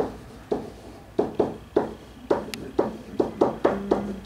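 Marker writing on a whiteboard: a quick, uneven run of sharp taps and short squeaks as numbers are written.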